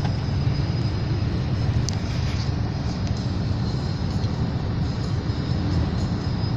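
Steady low rumble of a car driving at highway speed, with engine and tyre noise heard from inside the cabin.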